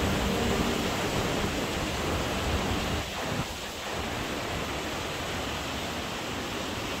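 Steady rushing hiss of flowing water from the town's river and stone water channels. It drops a little in level about three seconds in.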